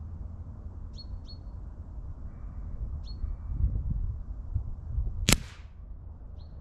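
A single sharp crack about five seconds in: a .177 pellet from a Webley VMX Quantum spring-piston air rifle striking the paper target. Short bird chirps come several times, over a low rumble of breeze on the microphone.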